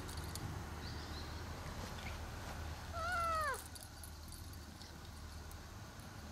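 A cat meows once, about three seconds in: a short call that rises a little and then falls in pitch.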